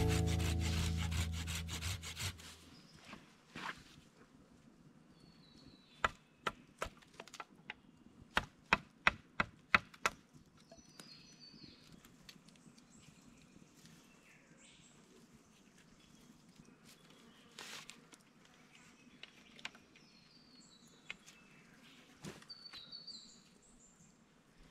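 Acoustic guitar music fades out, then a quick run of about a dozen sharp knocks, about three a second, from a hand-carved wooden mallet striking wood. After that, faint high chirps and a few scattered ticks over a quiet background.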